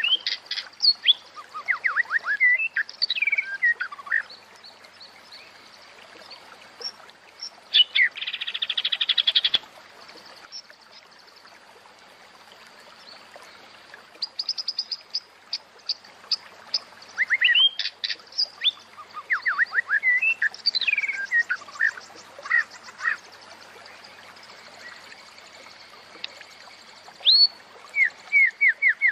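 Female white-rumped shama (murai batu) calling in bursts of quick chattering notes and rising and falling whistles, with a buzzy rattle about eight seconds in and pauses of a few seconds between bursts. These are the female's calls that keepers play to bring shamas into breeding condition.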